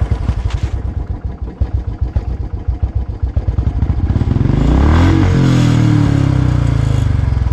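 Motorcycle engine thumping in a steady fast beat, growing louder and passing close about five seconds in, then running on.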